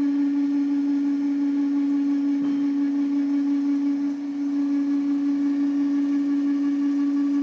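CNC milling cutter circular-milling a hole in a large gearbox housing: a steady, loud machine hum on one pitch with overtones, with a brief tick about two and a half seconds in.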